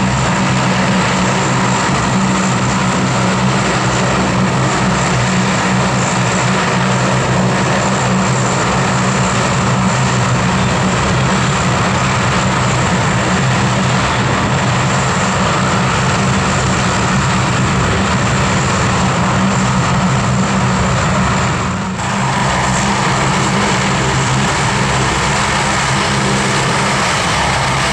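The four Allison T56 turboprop engines of a C-130H Hercules running as it taxis: a loud, steady propeller drone with a high turbine whine above it. The sound dips briefly about three-quarters of the way through.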